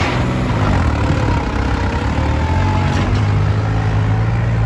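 New Holland 3630 tractor's diesel engine running under load as it pulls a disc harrow through sandy soil. Its steady low note wavers briefly at the start and then holds.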